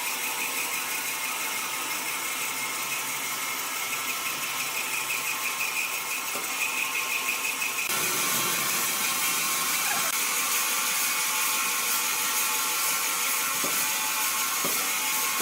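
Woodworking machinery running with a steady mechanical whirring and rattling. About eight seconds in, the sound changes abruptly to a louder, brighter hiss.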